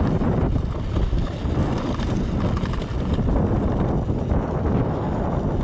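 Enduro motorcycle engine running steadily, with wind buffeting the microphone.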